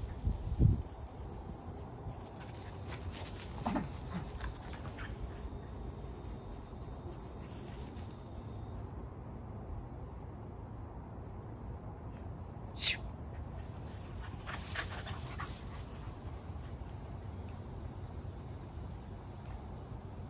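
Two corgis playing on a grass lawn, scuffling and panting, with a short sharp sound about thirteen seconds in. Behind them runs a steady high-pitched trill of night insects. A couple of low thumps come right at the start.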